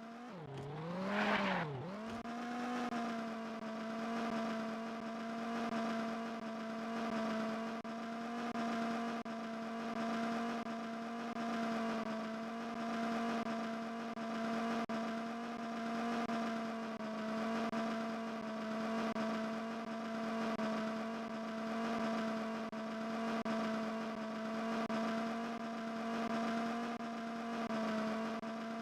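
A steady, buzzy droning tone with many overtones. Its pitch swoops down and back up about a second in, then holds level, swelling and fading slowly in a regular pulse.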